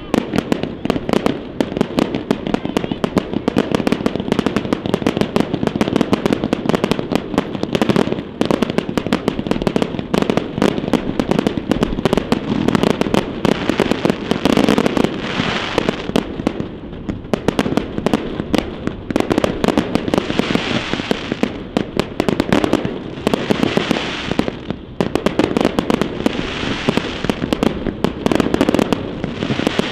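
Fireworks display: a dense, continuous barrage of shell bursts and bangs, with swells of crackling hiss every few seconds in the second half.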